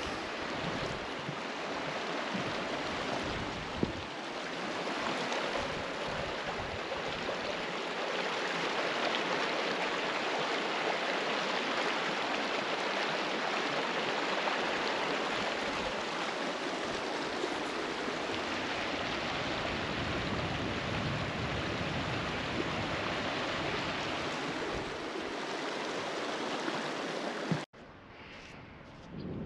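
Shallow stream running over stones, a steady rushing and rippling of water. It cuts off abruptly near the end.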